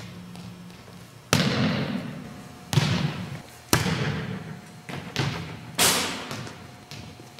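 A volleyball being served and then bouncing on a hard gym floor: about six sharp slaps and thuds spread over several seconds. Each one rings out in the echo of the large hall.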